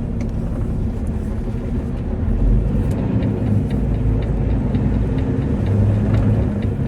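Peterbilt 579's Cummins diesel engine running under way, louder from about two seconds in as it pulls. The driver says the engine is running rough with a cylinder 3 misfire.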